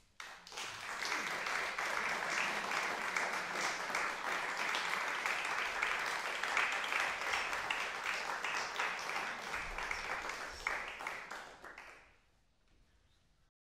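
Audience applauding: the clapping starts abruptly, holds steady for about eleven seconds, then thins out and stops.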